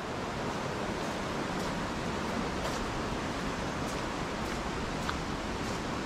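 Steady, even rush of water from a high waterfall, with a few faint ticks over it.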